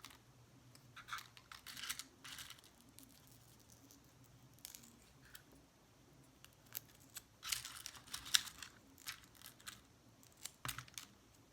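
Scattered light rustling and small clicks of plastic press-on nail tips and their packaging being handled and sorted, in two clusters: near the start and again about two-thirds of the way through.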